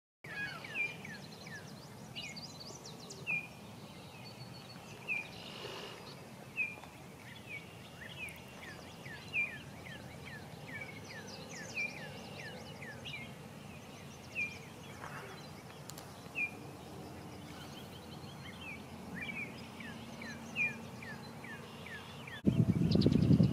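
Small wild birds calling over a steady outdoor hiss: sharp down-slurred chirps repeated every second or two, a fast run of falling chirps in the middle, and a few high buzzy trills. About a second before the end a sudden loud low rumble comes in.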